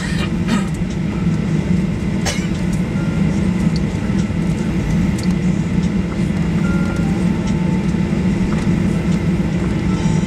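Steady cabin drone inside a Boeing 737 Next Generation airliner taxiing, from its CFM56 engines at taxi idle and the cabin air, low and even throughout. A few faint clicks come in the first second, and another about two seconds in.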